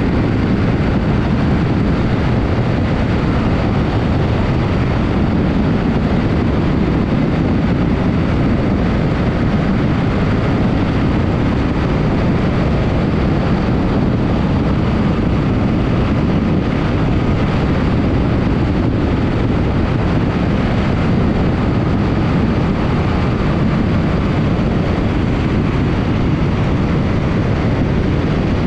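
Steady wind noise on the microphone of a BMW R1200GS Adventure motorcycle under way, a dense low rush that does not let up.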